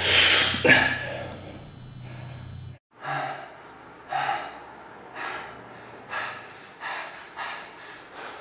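A man breathing hard under strain while holding a tricep plank to failure. A loud gasping exhale comes at the start; after a brief drop-out about three seconds in come short, sharp breaths about once a second.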